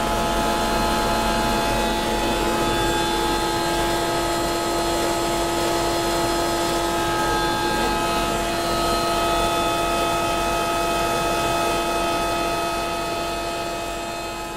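Steam turbo-compressor heat-pump plant running: a steady, dense machine whir with several steady tones, high ones included, fading out near the end.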